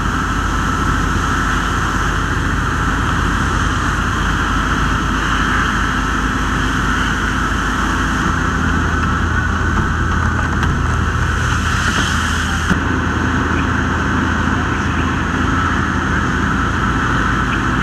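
Steady drone of a fire engine's motor running its pump, under a continuous hiss of a hose stream spraying the building.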